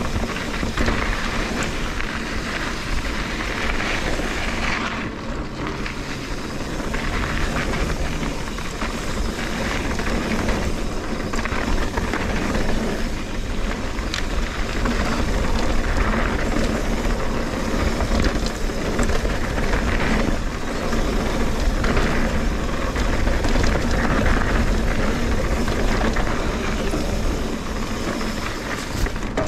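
Trek Fuel EX 8 mountain bike rolling along a dirt trail: steady tyre noise and rattling of the bike under a low rumble of wind buffeting the GoPro's microphone, with a few small clicks and knocks.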